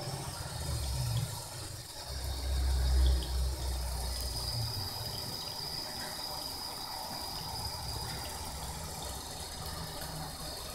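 Thin stream of tap water running from a bathroom faucet into a sink, steady throughout, with a low rumble that peaks about two to three and a half seconds in.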